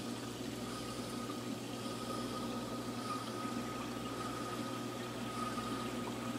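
Reef aquarium system running: a steady wash of circulating water with a constant low hum and a faint, steady high whine.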